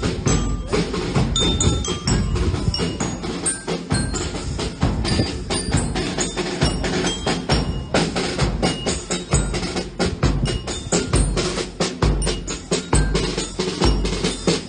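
Background music: bright, short mallet-percussion notes and wood-block clicks over a thumping low drum beat.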